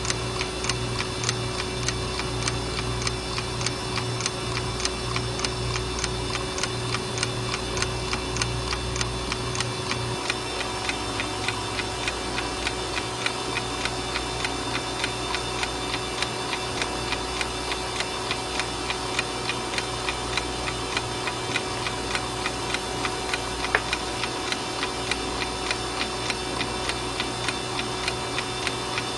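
Westclox wind-up alarm clock ticking steadily, several ticks a second, over a steady low hum. One sharper click stands out about three-quarters of the way through.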